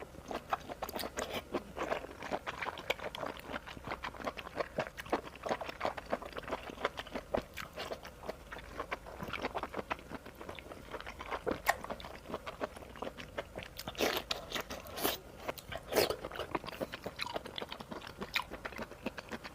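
A person chewing and crunching food close to the microphone, a dense run of irregular crisp bites and mouth sounds, a few louder crunches in the second half.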